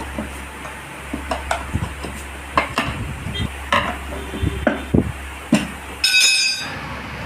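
Steel tyre levers knocking and clicking against a motorcycle's steel wheel rim as the tyre is prised off it, with a brief metallic ring near the end.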